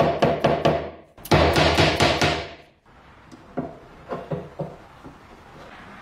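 Soft-faced mallet tapping a round metal bushing into a wooden block: a fast run of ringing knocks, about four a second, a short break, a second run ending about halfway through, then a few lighter taps.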